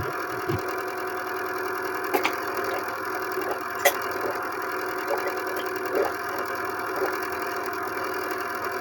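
A steady mechanical hum made of several held tones, with two sharp clicks, about two and about four seconds in.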